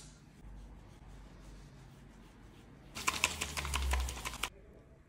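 Paper towel rubbed briskly over the skin of a forearm, heard as a burst of rapid crackly rustling about three seconds in that lasts about a second and a half, with a low rumble of handling under it.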